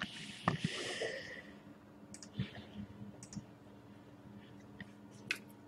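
Faint handling noise: a brief rustling hiss lasting about a second and a half, then scattered light clicks and taps.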